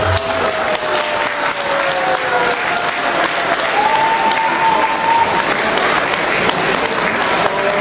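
Audience applauding, a steady clapping with a few voices calling out over it.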